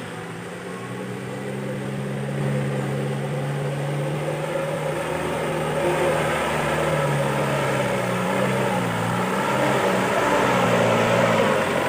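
Mitsubishi PS100 'umplung' truck's diesel engine running as the truck pulls slowly up onto the road, a steady drone growing louder as it nears; its pitch dips and comes back up about nine seconds in.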